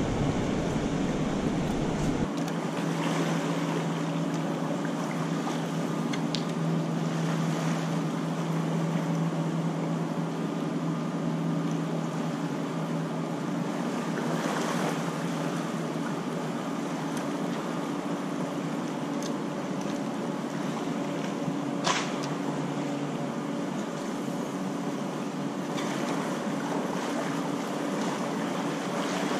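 Steady rushing of flowing river water with wind on the microphone, under a low steady hum. A single sharp click about 22 seconds in.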